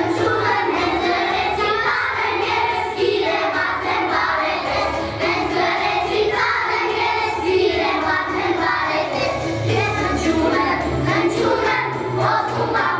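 A group of young children singing a song together, with instrumental accompaniment underneath.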